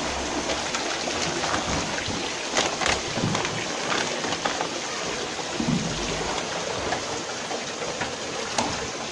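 Steady hiss of splashing or running water, with a few light knocks.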